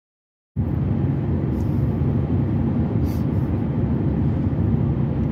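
Steady road and engine noise of a moving car, heard from inside the cabin, starting about half a second in.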